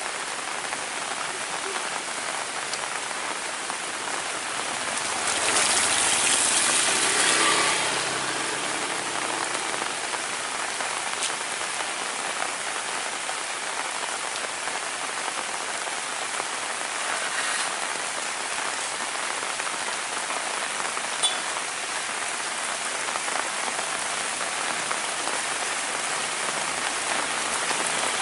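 Heavy rain falling steadily, with a louder swell lasting a couple of seconds about five seconds in and a single sharp tick past the middle.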